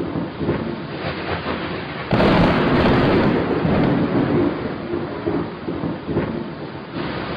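Thunderstorm: steady heavy rain with a sudden loud thunderclap about two seconds in that rumbles on and slowly fades.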